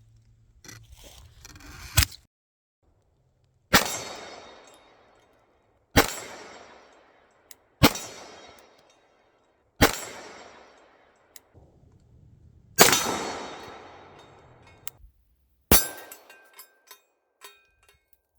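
Taurus 9mm pistol fired seven times at a slow, uneven pace, about two to three seconds apart, each shot echoing and dying away over a second or two. Light clicks and clinks come between the shots, with a cluster of them near the end.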